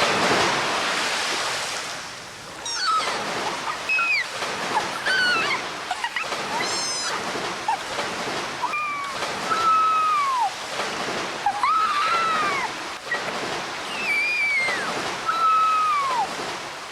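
A rush of water noise that fades over the first two seconds, then a long series of animal calls, each arching up and falling in pitch, over a softer wash of water.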